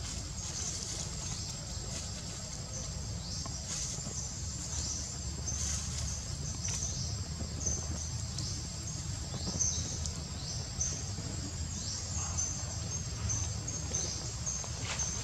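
Forest ambience: insects keep up a steady high-pitched drone, with many short high chirps and a few quick falling calls over a low rumble.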